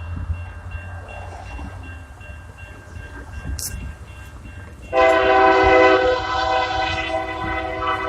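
A diesel locomotive's multi-tone air horn sounds a loud steady chord about five seconds in and keeps blowing, after a few seconds of low rumble from the approaching train.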